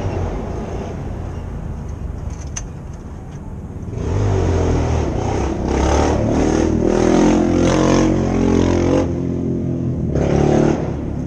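A motor vehicle engine running. It swells louder about four seconds in, stays up for some six seconds, then drops back near the end.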